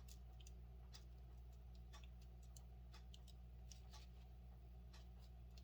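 Near silence: room tone with a steady low hum and faint, irregular small clicks scattered throughout.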